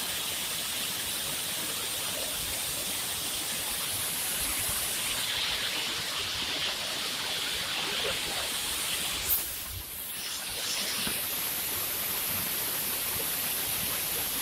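Steady rushing roar of the Amboli waterfall, water falling and splashing onto rocks. About nine seconds in there is a short click, and the rush briefly drops before it returns.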